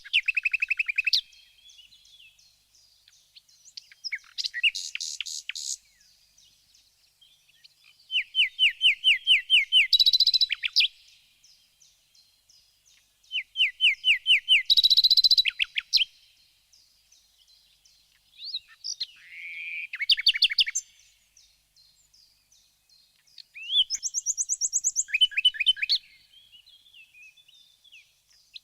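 Songbirds singing in bouts of fast, evenly repeated high chirps, each bout lasting a couple of seconds, with short quiet pauses between them.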